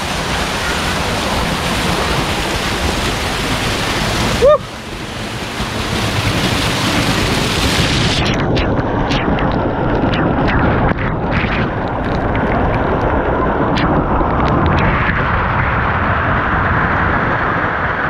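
Waterfall water pouring down right onto the microphone, a dense, loud rush. About four and a half seconds in there is a brief loud knock with a short squeak-like glide. From about eight seconds in the rush turns muffled, with dull splashes and knocks, as heard from a camera held inside the falling water.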